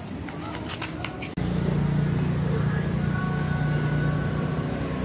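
Steady low rumble of a motor vehicle engine running, starting abruptly about a second in after a few faint clicks.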